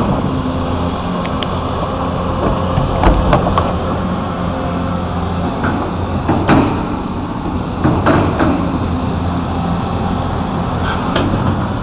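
Backhoe engine running steadily while it digs, with scattered sharp knocks and clanks over it, a cluster about three seconds in and more around six and a half and eight seconds in.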